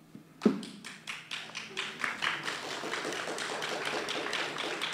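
A congregation applauding: scattered claps that quickly thicken into steady applause from many hands. A single loud thump comes about half a second in, just before the clapping builds.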